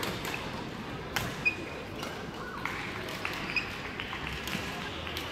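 Badminton hall ambience: scattered sharp smacks of rackets hitting shuttlecocks, with the strongest two close together a little over a second in, and short high squeaks of shoes on the wooden court floor, over a low murmur of voices echoing in the large hall.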